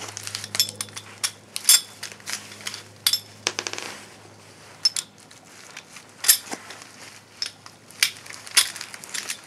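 Steel balls of a 930-type CV joint clicking and clinking against the cage and races as they are worked back into the joint by hand: irregular sharp metallic clicks, with a quick rattling run about three and a half seconds in.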